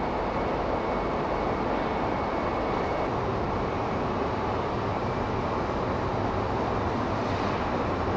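Steady rumble and hum of a 200 series Shinkansen train standing at the platform, with the noise of the station around it.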